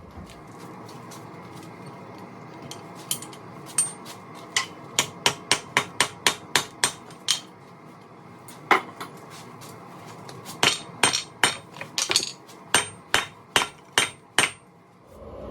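Hand hammer striking hot steel on an anvil, upsetting the hardy tool's shank in the hardy hole: a run of about a dozen blows at two to three a second, a single blow, then another run of about a dozen, each with a short metallic ring. A gas forge burner hisses steadily underneath.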